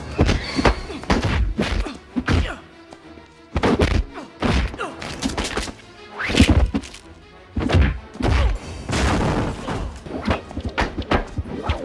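Movie fight sound effects: rapid punch and kick impacts, whacks and thuds, in quick clusters over an action music score, with a short lull about three seconds in.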